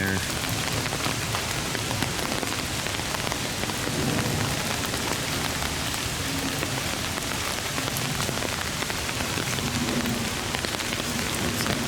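Steady hiss of light rain, with many small drops ticking on surfaces close by.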